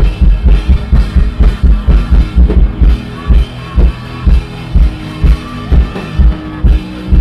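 Loud instrumental music with a drum kit: a heavy kick drum keeps a steady beat under held chords, faster at first and spacing out to about one beat every half second partway through.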